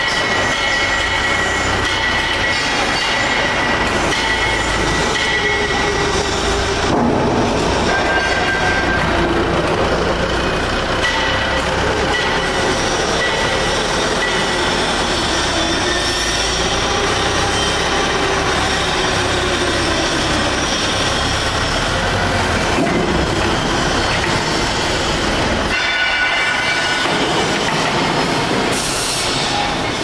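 A forklift running as it shoves a heavy steel wood chipper into a shipping container, the machine's steel base scraping and squealing against the container floor. Loud and steady throughout, with high squeals that come and go over a wavering lower whine.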